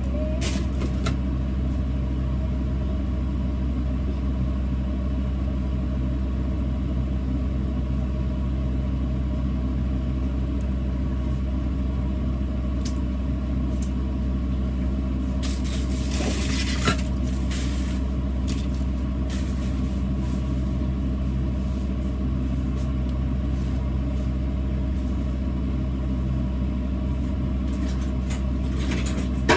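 Steady low hum of a running machine, unchanging throughout, with a few brief clinks about halfway through.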